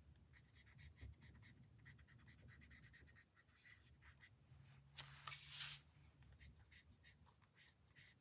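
Faint scratching of a marker nib on card in many short shading strokes, with a louder brief rustle about five seconds in.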